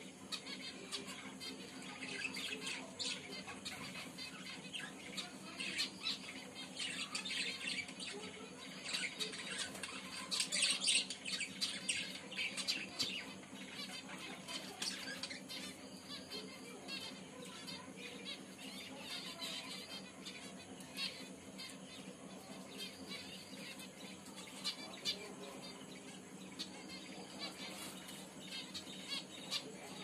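Small caged finches chirping: many short, high-pitched calls in quick succession, busiest about ten seconds in.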